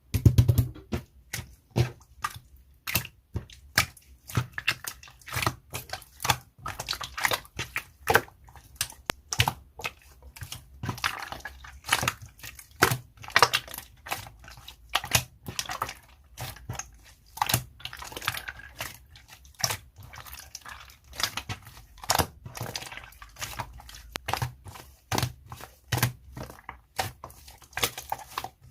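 Slime being squished and pressed by hand, its trapped air pockets popping in a dense, irregular run of sharp clicks and crackles, several a second.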